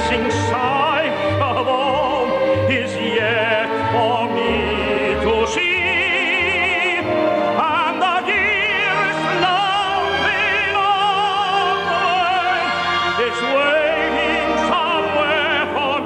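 Operatic-style music with an orchestra, its melody held in long notes with a wide vibrato.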